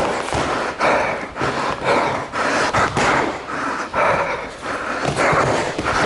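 Hard, quick breathing close to the microphone, a sharp breath every half second to a second, with thuds and knocks from gloved punches and bodies colliding during sparring.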